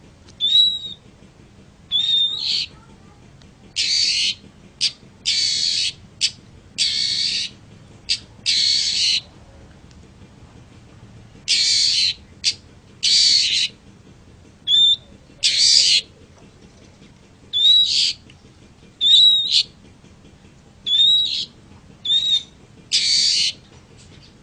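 Long-tailed shrike calling over and over: harsh, rasping calls up to about a second long alternating with short whistled notes that flick upward, some twenty calls with brief pauses between them.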